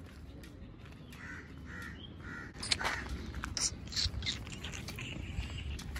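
Crows cawing: a run of short calls repeated from about a second in, over a low steady rumble.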